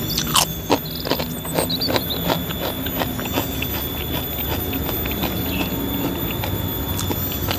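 Close-up crunching of a crispy fried chip being bitten and chewed, with a dense run of sharp crackles in the first couple of seconds that thins into scattered crunches and softer chewing.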